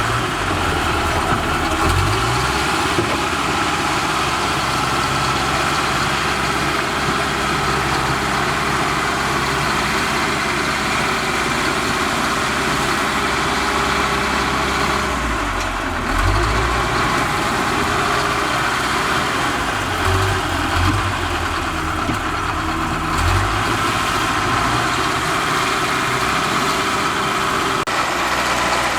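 Bulldozer's heavy diesel engine running steadily, with a few brief low swells in the rumble.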